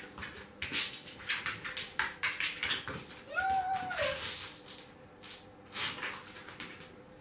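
A dog gives one short whine that rises and falls, about three seconds in, among quick clicking and smacking sounds of the dogs licking and taking treats from a hand.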